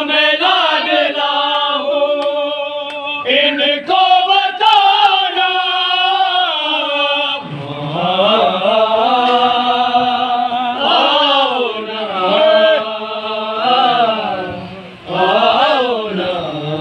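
A group of men chanting a noha, a Shia mourning lament, together, with long held notes that waver and bend in pitch.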